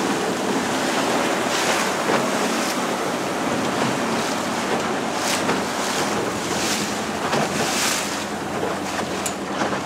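A small boat's motor running steadily under a constant wash of wind on the microphone and water, with repeated surges of hiss from surf breaking and spray.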